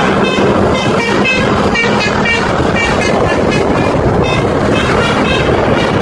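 Bus telolet horn playing a quick string of short, high notes, repeated again and again, over steady wind rush and engine hum.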